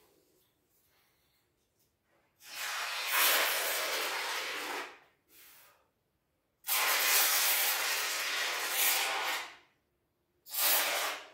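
Expanding polyurethane foam hissing out of a can mounted on a foam gun, in two long spurts of about three seconds each and a short one near the end.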